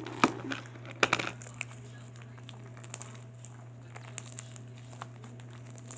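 Hands kneading and stretching fluffy slime as it finishes activating, giving sticky clicks and small pops, loudest near the start and about a second in, then fainter ticks. A steady low hum runs underneath.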